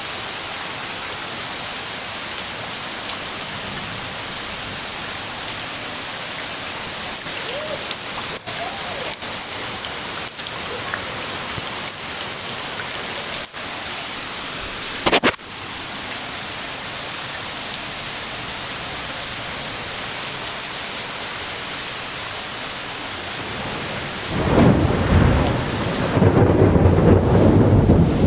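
Steady rain falling. A short sharp sound comes about halfway through, and near the end thunder starts rumbling and grows loud.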